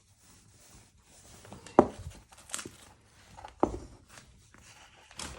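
Wooden pieces being handled and set against each other: about four separate knocks and taps of wood on wood, the loudest a little under two seconds in.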